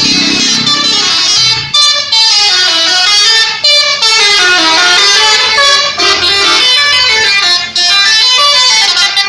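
Indonesian intercity bus's multi-tone musical "telolet" horn, loud, playing a melody of notes that step up and down with short breaks between phrases. Near the end it breaks into rapid repeated toots.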